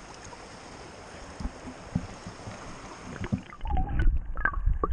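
A small stream running with a steady hiss, then about three and a half seconds in the sound drops under the water: muffled, with a heavy low rumble of the current and sharp clicks and gurgles.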